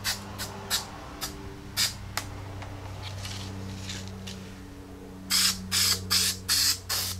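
Aerosol spray adhesive being sprayed in a series of short hissing bursts, the five loudest in quick succession near the end, to glue a gasket on. A steady low hum runs underneath.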